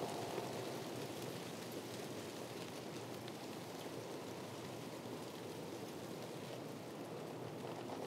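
Wind blowing through a palm tree's fronds: a steady rustling hiss with a few faint ticks.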